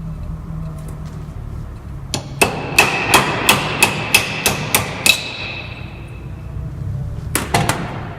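Hammer blows on metal, about three a second for some three seconds with a ringing note after each, then two or three more blows near the end: a power steering rack's valve being knocked apart to get at its seal and bearing. A steady low hum runs underneath.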